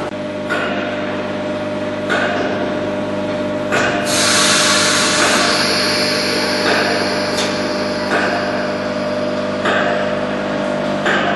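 Electric multiple unit standing at the platform, its onboard equipment humming steadily, with a loud hiss of air from about four to five and a half seconds in.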